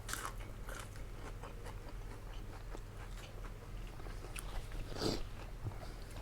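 A person chewing and biting food close to the microphone, with small crunchy clicks and one louder crunch about five seconds in.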